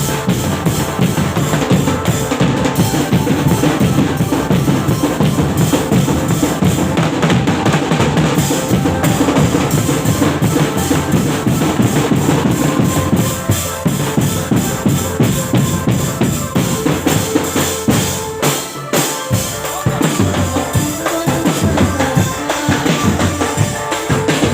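Loud live music driven by drums: a fast, steady beat of bass drum and snare with other percussion, thinning out for a few seconds about two-thirds of the way through before the full beat returns.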